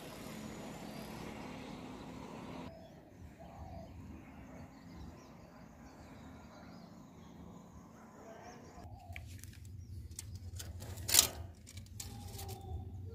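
Outdoor background with faint bird chirps and a steady hiss that stops about three seconds in. In the last few seconds a low hum comes in with handling clicks and one sharp knock, as a steel tape measure is set against rectangular mild-steel tubing.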